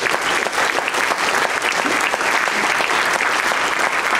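An audience applauding: many people clapping at once, steady and sustained, in response to the speaker's applause line.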